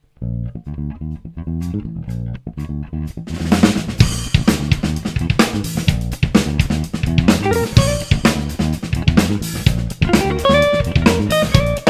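A live funk trio of electric guitar, electric bass and drum kit playing a fast tune. Low bass notes start alone; about three seconds in, the drums and guitar join with a busy, driving beat.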